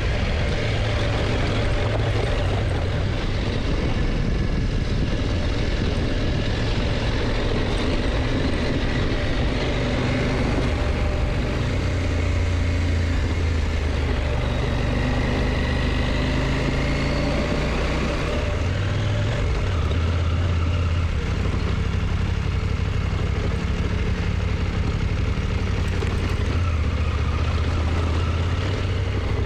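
KTM motorcycle engine running under way, its low note shifting up and down a few times, over steady wind and road noise.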